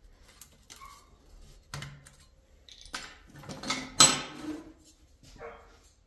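A Great Pyrenees dog barking a few times, with a sharp metal clink about four seconds in.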